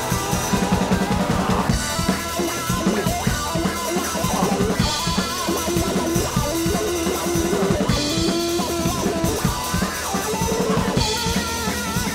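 Background music with a drum kit and guitar.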